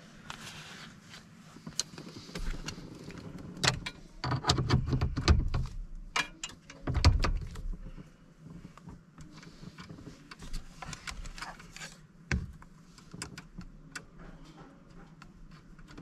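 Hands working on an opened truck steering column: irregular clicks, rattles and rustling of plastic parts being handled and fitted, with a cluster of heavier knocks a few seconds in and a single sharper knock later.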